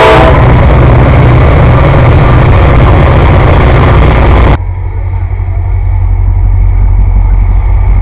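Norfolk Southern diesel locomotives passing close by: heavy engine rumble and wheel noise, with the tail of a horn blast cutting off at the start. About four and a half seconds in, the sound cuts abruptly to the quieter low diesel rumble of another train approaching, which grows louder toward the end.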